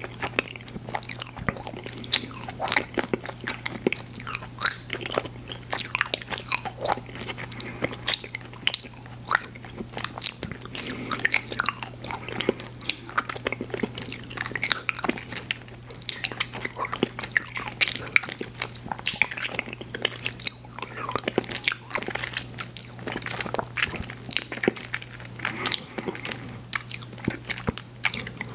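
Close-miked chewing and biting of candy: a dense, irregular run of small crackly clicks and mouth smacks, with a steady low hum underneath.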